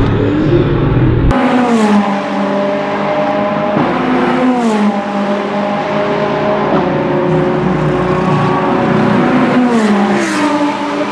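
Ferrari 488 GT3 twin-turbo V8 race cars accelerating at full throttle. The engine note climbs and drops sharply at each upshift, about three times, with short sharp cracks at some of the shifts, and one car passes close near the end.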